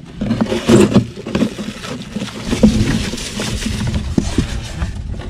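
Crinkling of a plastic bag and scraping on a styrofoam ice box as a live mud crab is pushed down into it among ice, with a jumble of small clicks and knocks.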